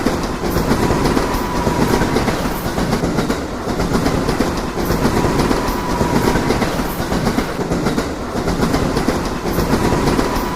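Train running along the track: a steady, loud rumble of wheels on rail with a faint clatter over the rails and a thin steady whine.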